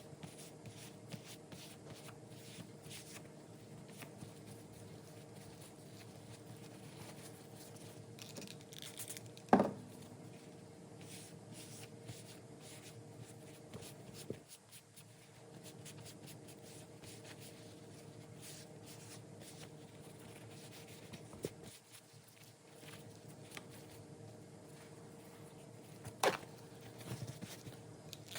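Hands working on an old leather wallet: light rubbing and scratchy handling noises with faint clicks, and two sharp knocks, about ten seconds in and again near the end. A steady faint hum runs underneath.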